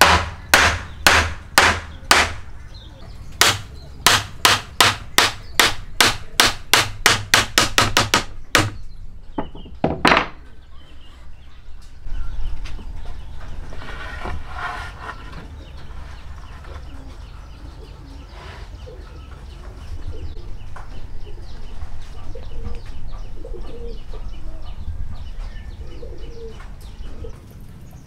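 A hammer striking wooden boards, driving a hand-cut dovetail joint home: about two dozen sharp blows over the first eight seconds that come faster and faster, then two more after a short pause.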